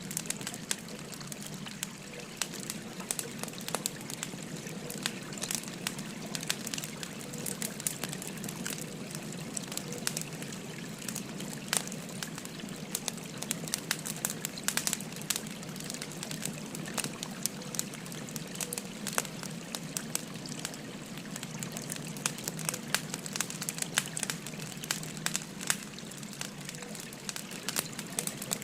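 Wood fire crackling with many small, irregular pops over the steady rush of a flowing river.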